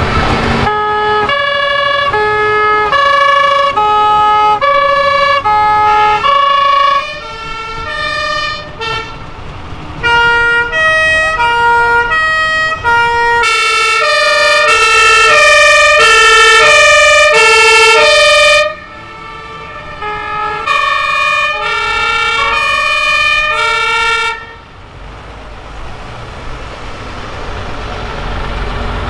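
Two-tone sirens of several fire engines sounding one after another, each stepping evenly between a high and a low note. Several overlap and are loudest around the middle. The sirens stop near the end, leaving the rumble of the trucks' engines.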